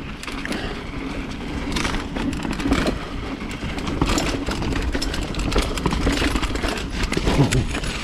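Mountain bike rolling fast over rough, rooty dirt singletrack: a continuous rumble of tyres on the trail with frequent rattles and knocks from the bike.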